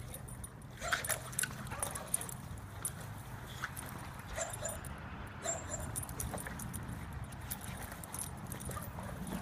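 Dog playing with a hard plastic water-weighted ball on a rope over dry grass: irregular knocks, scuffs and clicks from the ball, rope and the dog's feet, with a few short sounds from the dog itself.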